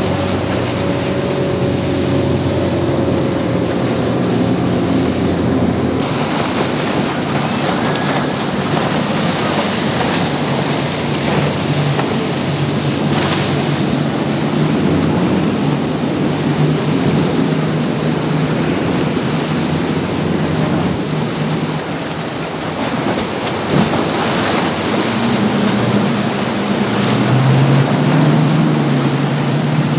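Motorboat engines running through the inlet over steady surf and wind noise on the microphone. One boat's engine hum fades away in the first few seconds, and another comes in louder near the end.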